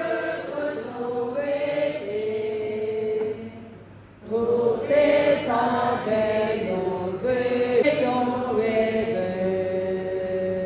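An assembled group of voices, women and monks, slowly chanting or singing together in unison, with long held notes that step from pitch to pitch. The singing breaks off about three and a half seconds in and starts again about a second later.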